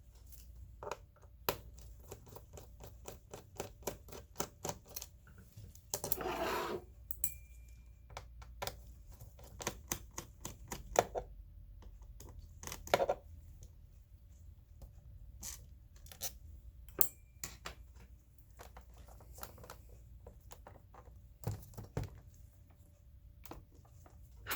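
A laptop being taken apart by hand: irregular small clicks and taps on its plastic case and parts, with a short scraping rub about six seconds in.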